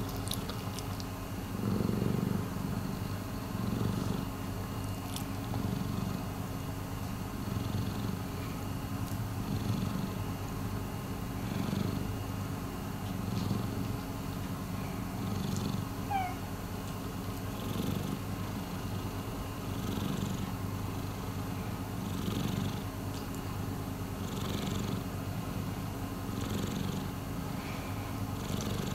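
A domestic long-haired cat purring steadily and contentedly close to the microphone, the low rumble swelling and easing about every two seconds with each breath.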